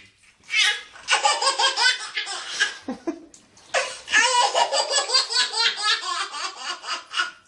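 A baby laughing hard in two long fits of quick, repeated laughs, the second starting a little after the middle.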